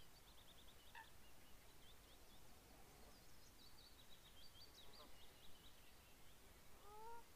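Near silence with faint distant birdsong: strings of quick high chirps and twitters, and a lower call with a few stacked tones near the end.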